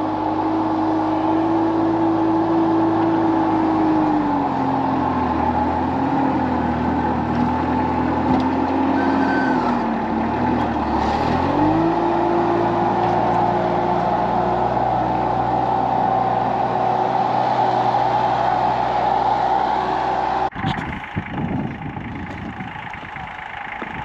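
Compact tractor's engine running steadily while its rear blade scrapes snow; the engine note drops for several seconds and then comes back up. The engine sound cuts off abruptly near the end.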